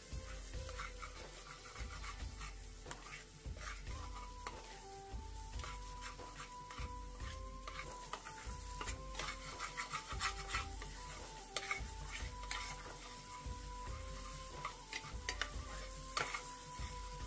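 Slotted steel spoon stirring and scraping cooked greens and egg around a non-stick kadhai, with a light sizzle of hot oil and many short scrapes of metal on the pan. A soft melody plays faintly underneath.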